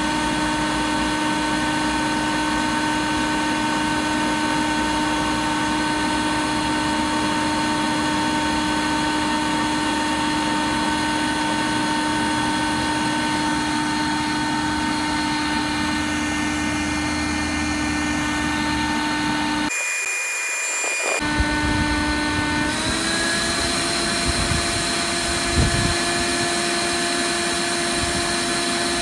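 A steady drone from an electric blower motor. It cuts out briefly about two-thirds of the way through, then comes back, and its pitch steps up slightly a moment later. A few faint knocks follow near the end.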